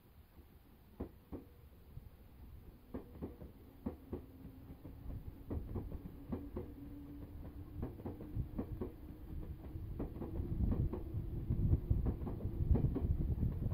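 Nankai Main Line electric commuter train pulling away from the platform: its wheels clack over the rail joints with the beats coming faster, and a motor whine rises slowly in pitch from about three seconds in as it gathers speed. It gets louder toward the end as the cars pass close by.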